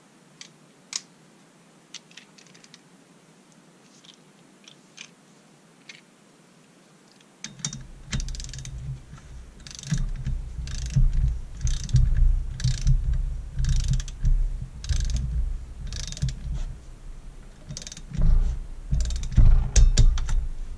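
Tekton ratcheting torque wrench tightening a decompression valve into a chainsaw cylinder: after a few faint clicks, about seven seconds in it starts a run of ratchet clicks in repeated strokes a little under a second apart.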